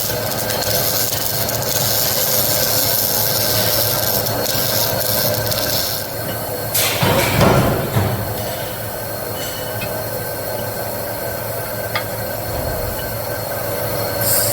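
Chain-link welding equipment working on forged links: a steady machine hum with a high whine, and one loud noisy burst lasting about a second, about seven seconds in.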